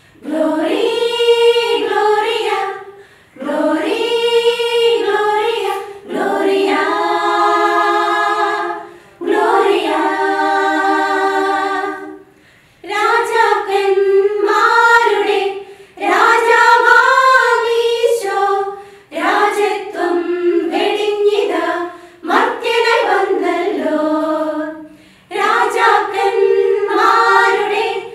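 Women's choir singing a Christmas carol a cappella, in sung phrases of a few seconds each broken by short pauses for breath.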